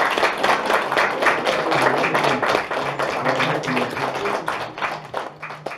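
Audience applauding, dense hand-clapping with voices heard under it, dying away over the last second or so.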